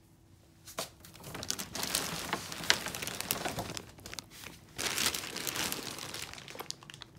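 Plastic packaging and shopping bags crinkling and rustling as they are handled, starting about a second in and dying down near the end.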